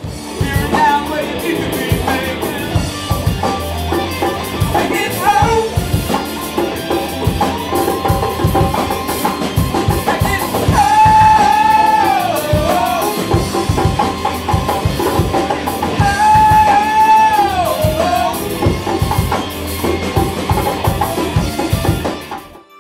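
Live rock band playing, with drum kit, guitars and singing over a steady beat. Long held melody notes come about eleven and sixteen seconds in.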